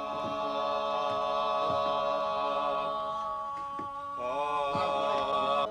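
Voices singing a slow chant in long held notes, several pitches sounding together. About four seconds in, the notes waver and slide before settling again.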